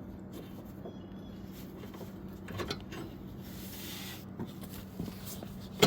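Mower deck drive belt being handled and routed over metal belt keepers and pulleys: faint rubbing and scraping with a few light knocks, and a sharp knock near the end, over a steady low hum.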